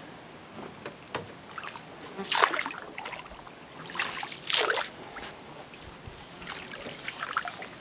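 Water splashing and dripping around a small paddled boat in a shallow channel, with three louder splashes at about two and a half, four and four and a half seconds in.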